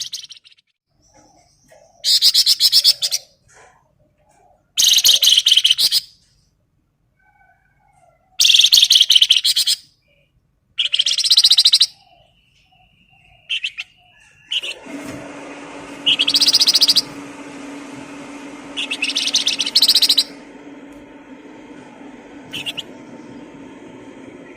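A songbird singing short bursts of very fast, high chattering trill, each about a second long and a few seconds apart. About fifteen seconds in, a steady low hum and background hiss come in under the song.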